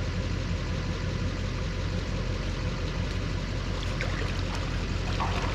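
Steady low rumble of strong wind buffeting the microphone, with a faint steady hum underneath.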